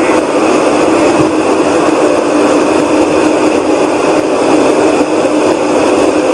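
A loud, steady whooshing rumble from the sky, with a low droning hum running through it. The recordist insists it is not aircraft noise.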